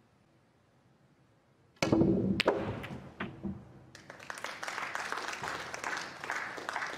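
Snooker shot: the cue strikes the cue ball about two seconds in, then balls clack together and knock off the cushions several times. From about four seconds in, the audience applauds.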